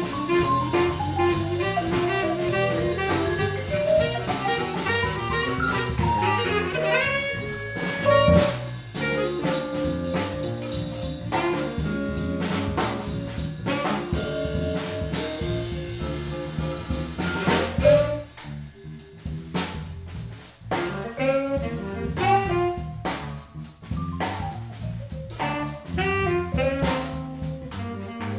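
A jazz-funk band playing live: vibraphone struck with four mallets, tenor saxophone, electric bass and drum kit. The playing thins out into a sparser break about two-thirds of the way through before the full band comes back in.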